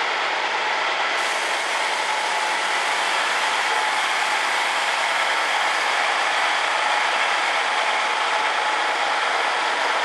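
Steady, unchanging mechanical running noise with faint constant tones through it, from machinery running nearby.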